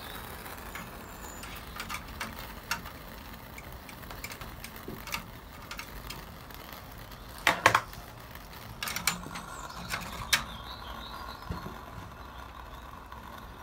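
Sporadic metal clicks and taps as the burner tray of a Wilesco D305 toy steam engine is pushed in under the boiler and set in place. The loudest is a short clatter a little past halfway, over a faint steady hiss.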